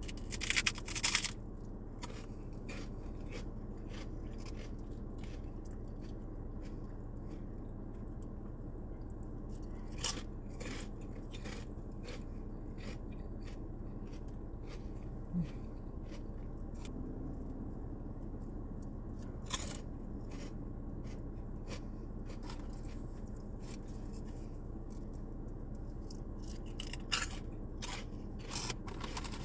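Pork rinds crunching as they are bitten and chewed, in scattered crisp crackles: a loud burst at the start, single crunches every few seconds, and another flurry near the end. A steady low hum runs underneath.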